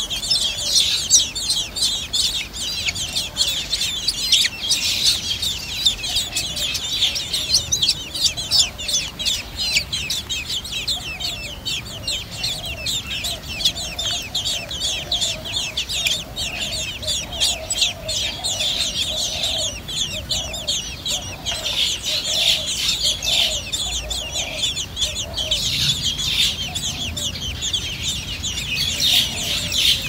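Blackbird nestlings begging, a dense, unbroken chorus of rapid high squeaky calls while the adult stands at the nest. Through the middle stretch a lower note repeats about every half second beneath them.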